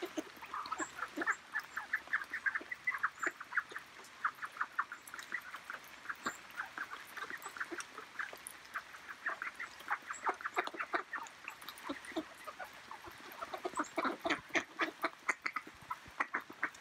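A flock of mallard ducks quacking, with many short overlapping quacks in quick succession that grow busier around the middle and again near the end.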